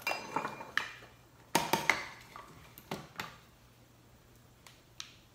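Small hard parts being handled on a workbench: a run of clicks and clinks, the first ringing briefly like metal, the loudest pair about a second and a half in, then a few faint ticks.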